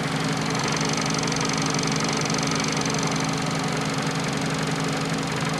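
Fiat Panda 4x4 Sisley's engine idling steadily just after a cold start, with the fuel injector ticking away.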